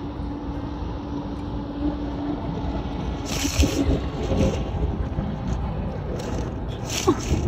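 Outdoor wind rumbling on the microphone, with a steady engine hum from road traffic that fades out about two seconds in. A few short rustling bursts come around the middle and near the end.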